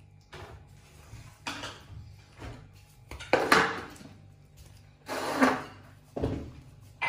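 A pet macaque eating bread and handling it over a wicker basket: a series of short rustling and knocking noises at uneven intervals, the loudest about three and a half and five and a half seconds in.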